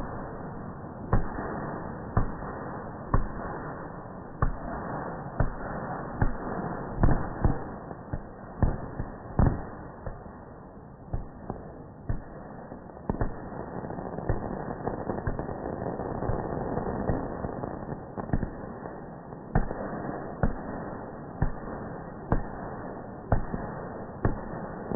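Fireworks going off: a continuous crackle of sparkling bursts with sharp bangs roughly once a second.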